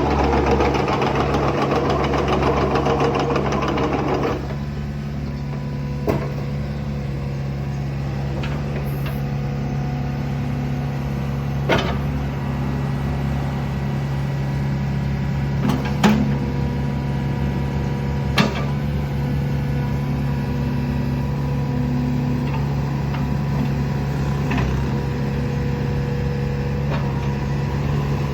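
Komatsu PC45R-8 mini excavator's four-cylinder Komatsu 4D84E diesel engine running. It is louder and rougher for about the first four seconds, then settles to a steady, even run. A few single sharp knocks come through it along the way.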